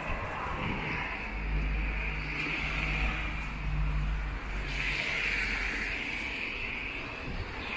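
Road traffic on a wet street: vehicles passing with tyre hiss that swells about five seconds in, over a low rumble.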